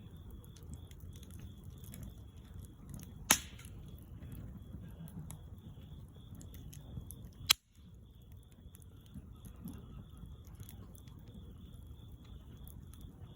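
Wood fire crackling, with small snaps throughout and two sharp pops, about three seconds in and again about seven and a half seconds in.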